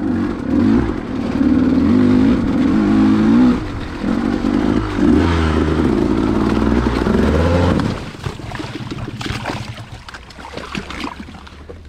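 KTM two-stroke dirt bike engine revving up and down as it churns through deep mud. About eight seconds in the engine note cuts out, leaving quieter clattering and scraping as the bike goes down in the muddy water.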